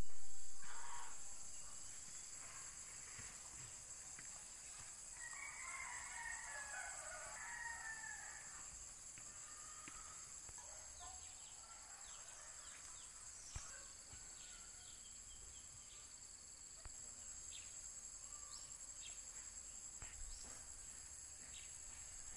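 Rooster crowing with scattered chicken calls, loudest at the very start and again about five to eight seconds in, over a steady high-pitched insect drone.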